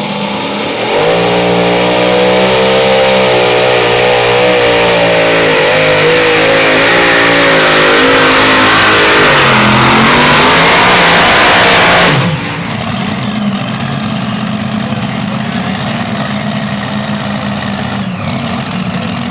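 Multi-engine modified pulling tractor running flat out under load, its engines climbing in pitch, sagging briefly near ten seconds in, then rising again. About twelve seconds in, the throttle comes off suddenly and the engines drop to a lower, steady idle.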